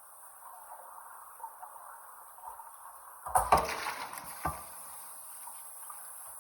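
Cast iron Dutch oven being rinsed and handled under running water, with a loud clunk a little over three seconds in and a smaller knock about a second later.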